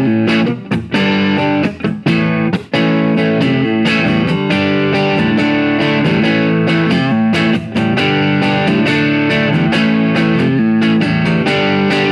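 Schecter Telecaster-style electric guitar played through a tube amp: picked notes and chords ringing out, with a few short breaks between phrases in the first three seconds, then continuous playing.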